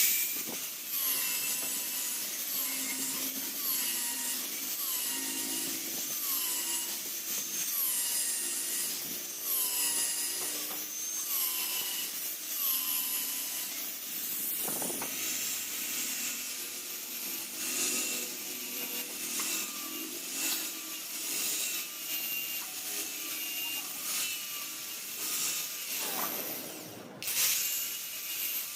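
Angle grinder with a thin cutting disc cutting steel pipe. Its whine dips in pitch and recovers in repeated strokes about once a second as the disc is worked into the metal, then runs more evenly in the second half.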